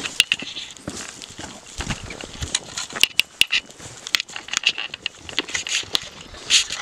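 Footsteps crunching on a dirt path strewn with twigs and dry debris, with leaves and branches brushing past: a run of irregular crunches and snaps.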